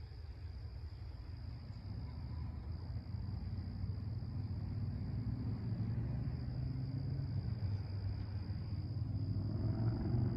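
Crickets chirring in a steady high, even tone over a low diesel rumble that grows steadily louder: an approaching GE Dash 9-44CW locomotive, BNSF 5483, with its 16-cylinder diesel engine.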